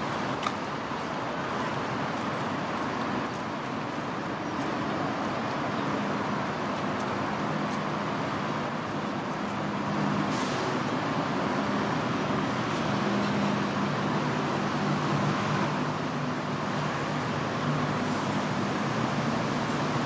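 Steady urban road-traffic noise, with the low hum of passing vehicle engines coming in partway through.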